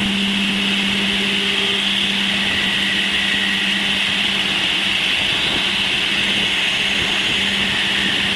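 Sonified electromagnetic wave data from Uranus's magnetosphere, made audible: a steady, even high hiss over a constant low hum, with faint shifting noise beneath.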